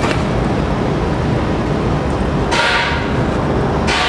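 Metal baking tray scraping across a deck oven's rack as it is pulled out, once about two and a half seconds in and again near the end, over steady kitchen background noise.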